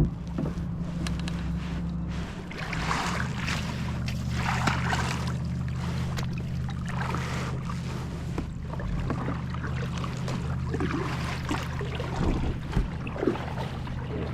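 Kayak moving on the water while trolling: water washing against the hull in swells every couple of seconds, over a steady low hum.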